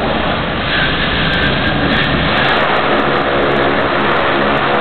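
Twin-engine turboprop plane's engines and propellers running loud and steady as it rolls along a dirt airstrip after landing.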